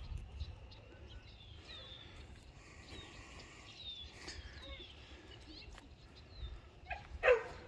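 Small birds giving short, high calls that slide down in pitch, several times, over a faint low rumble of wind on the microphone. A brief louder cry rises near the end.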